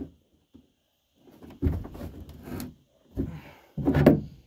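Hard plastic scraping and knocking as a flush-mount rod holder is worked into a freshly cut hole in a kayak's hard plastic deck. After a quiet first second there is a stretch of scraping, then a few dull knocks near the end.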